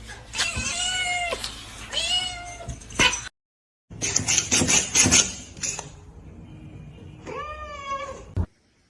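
Domestic cat meowing: three drawn-out meows in quick succession, then a short break. Some brief clicks and rustling follow, and one more long meow comes near the end.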